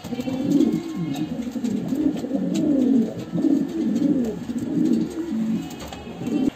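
A pair of black Moyna jhak running pigeons cooing over and over in low, rising-and-falling calls that overlap; the cock, neck puffed out, is bow-cooing at the hen. The cooing cuts off suddenly at the end.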